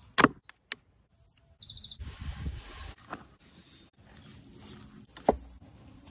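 Sharp clicks and knocks: a loud one right at the start, a smaller one about 3 s in and another about 5 s in. A short high bird trill comes before the second second, followed by about a second of rustling noise.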